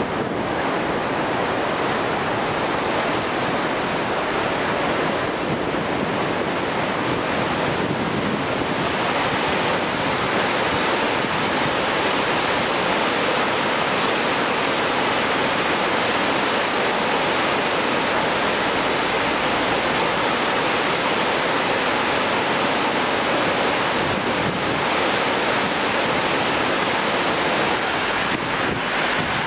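Steady rush of fast-flowing, flood-swollen river water, with wind on the microphone.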